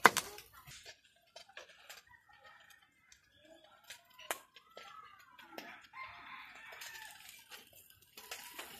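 A rooster crowing from about four seconds in, its call rising and then falling, with more crowing after it. Near the start a knife knocks sharply on a wooden cutting board.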